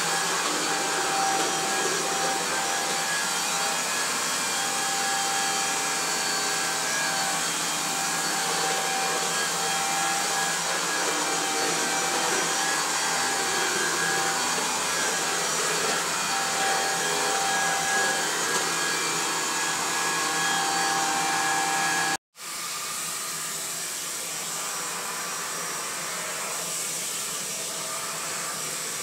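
Dyson Cinetic Big Ball Animal cylinder vacuum cleaner running steadily with its turbo tool pushed over a laminate hard floor: a loud rush of airflow with a faint motor whine. About two-thirds of the way through the sound cuts out for a moment, then the vacuum runs on slightly quieter with the brush tool along the edge of the floor.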